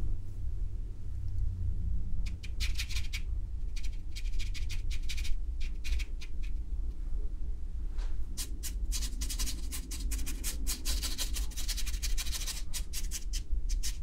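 Flat paintbrush dragged in quick strokes across watercolour paper, a scratchy brushing that comes in short runs after a couple of seconds and again around four to five seconds in, then a longer run from about eight seconds to near the end. A low steady hum sits underneath.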